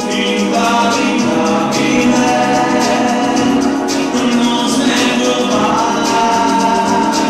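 A man singing into a handheld microphone, amplified through a PA, holding long notes over musical accompaniment with a steady beat.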